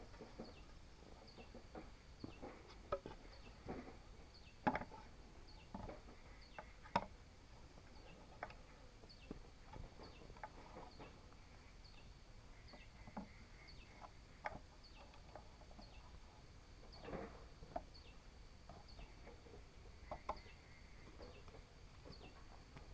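Faint chickens clucking now and then among scattered short knocks, with a thin high chirp repeating evenly about every three-quarters of a second.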